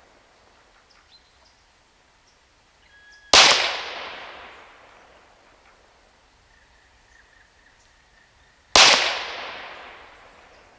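Two shots from a .22 PCP air pistol converted from a Huben K1 bullpup action, about five and a half seconds apart, each a sharp crack followed by a long, fading echo. Faint bird chirps are heard between the shots.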